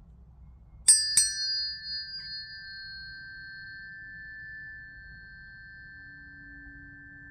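Sun and Mercury planetary tuning forks struck twice in quick succession, each strike a sharp click, then ringing on as a steady high tone while their brighter overtones fade over a few seconds.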